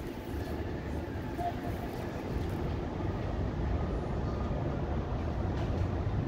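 Steady low rumble of a car driving: road and engine noise, growing slightly louder in the second half.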